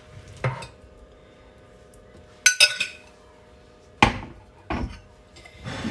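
Spoon scraping and clinking against ceramic bowls as potato salad is scraped out of a mixing bowl into a serving bowl: a few separate sharp clinks and knocks, some briefly ringing, the loudest about two and a half and four seconds in.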